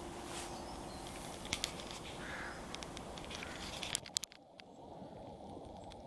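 Faint outdoor background hiss with light rustling and a few soft clicks. About four seconds in, the hiss thins out and grows quieter.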